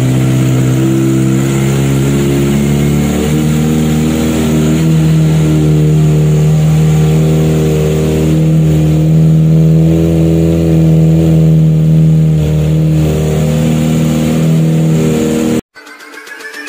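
Kawasaki ZX25R's 250 cc inline-four running steadily through a Corse full-system aftermarket exhaust, its pitch stepping up a little about four to five seconds in. The engine sound cuts off suddenly about a second before the end, where a short music intro takes over.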